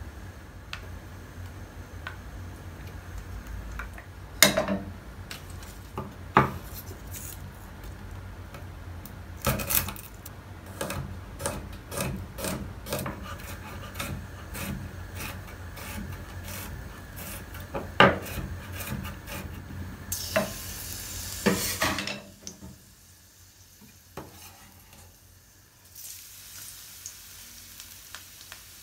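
A chef's knife chops garlic on a wooden cutting board in irregular knocks, with a few sharp loud strikes, over a low steady hum. Near the end, chopped garlic dropped into hot oil in a wok sets off a soft sizzle.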